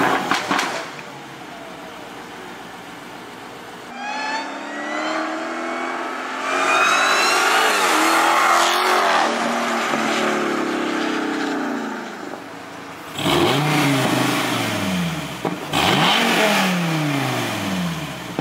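Dodge Challenger SRT Demon 170's supercharged V8 blips loudly at the start and settles to an idle. About four seconds in it accelerates hard, its pitch climbing through several gear changes. Near the end come two falling engine sweeps.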